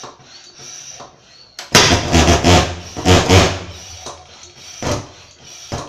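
Swingfog SN50 thermal fogger's pulse-jet engine being hand-pump started: faint pumping strokes, then about two seconds in the engine fires and runs roughly for about three seconds before faltering, with two short pops near the end.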